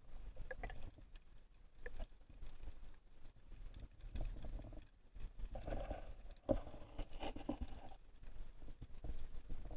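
Muffled river water heard through a submerged camera: a steady low rumble with scattered soft knocks and clicks, busiest in the middle.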